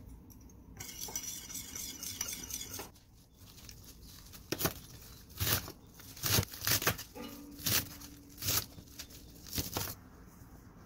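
Large kitchen knife chopping chamnamul leaves on a stainless steel cutting board: about seven sharp chops, irregularly spaced, each roughly half a second to a second apart, in the second half. Before the chopping there are a few seconds of soft, rustling noise.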